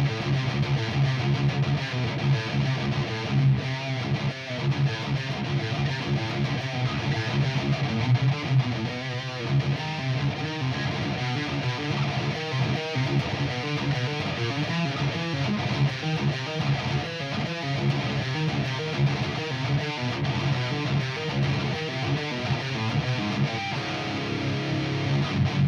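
Electric guitar played continuously, a steady stream of quickly changing notes.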